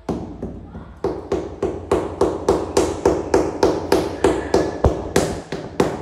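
Steady, evenly paced hammering, about three to four sharp knocks a second, beginning about a second in.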